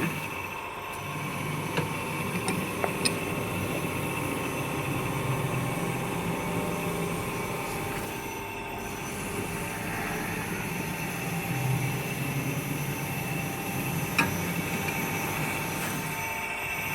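Knife grinding machine running: a steady motor hum with a constant whine over it, and a few short clicks.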